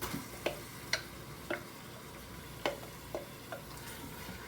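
Marinated chicken pieces being added to butter and onions in a Pampered Chef Quick Cooker on sear: about seven light taps at uneven spacing over a faint sizzle.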